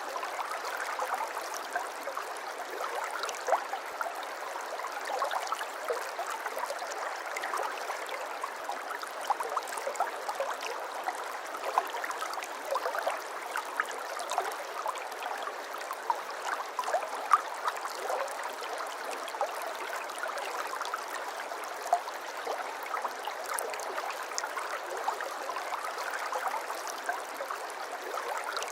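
Water flowing and babbling steadily in a stream, with many small splashes and gurgles.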